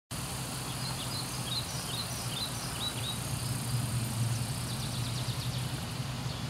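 Outdoor park ambience: a small bird chirping a quick run of short, hooked notes over a steady low hum, followed a few seconds later by fainter, rapid high ticking notes.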